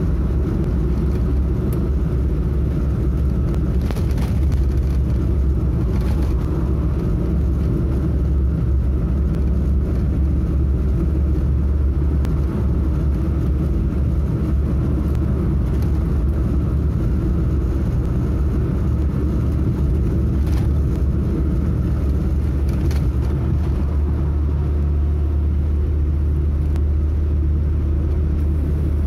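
Steady drone of a car cruising at highway speed, heard from inside the cabin: engine and tyre-on-road noise, heavy in the low end and unchanging throughout.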